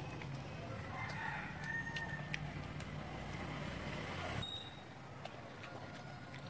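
A rooster crowing once, about a second in, for about a second and a half, over a low steady hum that stops about four and a half seconds in.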